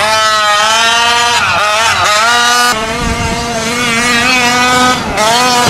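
Large-scale 30 Degrees North RC truck driving flat out, its motor note rising and falling with the throttle. The pitch dips briefly twice as it backs off, then climbs again.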